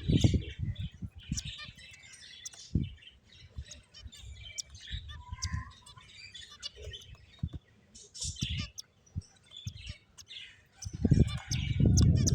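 Pet finches chirping: many short, high chirps overlapping throughout. Loud low thumps and rustling at the start and again for the last second or so.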